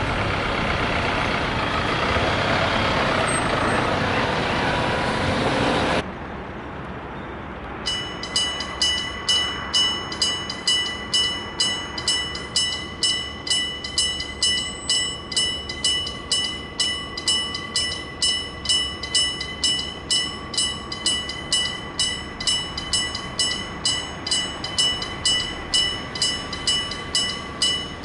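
A train runs past with loud rail noise that cuts off abruptly about six seconds in. About two seconds later an electric level-crossing bell starts striking about twice a second, each strike ringing and fading, and keeps on steadily.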